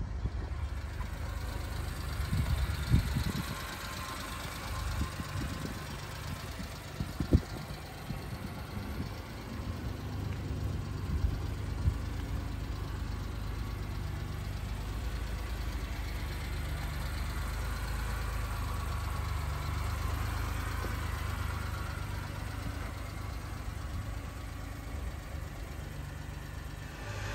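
1993 Suzuki Carry kei truck's small three-cylinder engine idling steadily, with a few sharp knocks or thumps in the first half.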